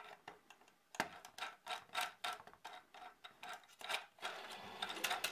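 Faint, irregular light clicks and taps of plastic parts being handled, starting about a second in: the printed syringe cartridge and syringe being fitted together.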